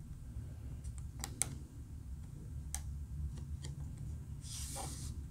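Light clicks and taps of laser-cut wooden keel pieces being pressed together and handled on a tabletop. There are a few sharp clicks a second or so in, and a short scrape near the end.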